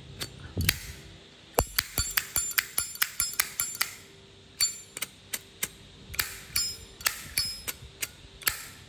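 A brass Zippo lighter being handled: a run of irregular, sharp metallic clicks and clinks, some with a brief high ring.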